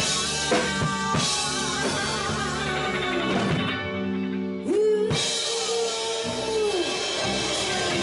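Live rock band playing, with drum kit, electric guitar, bass guitar and a woman singing. Near the middle the cymbals drop out for under a second, then a hit brings the band back in under one long held note of about two seconds.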